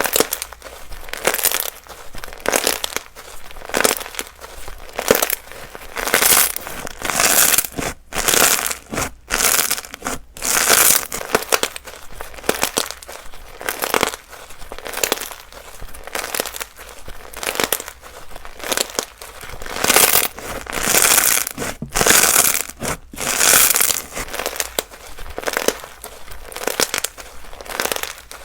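Slime being squeezed and pressed by hand, making a run of crackly, crinkling squishes, roughly one or two a second.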